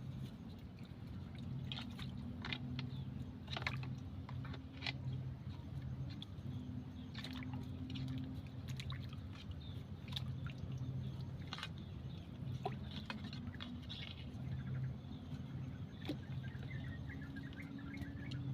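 Wet clicks, pops and drips of mud and water at a mud crab burrow being probed, scattered irregularly over a steady low hum.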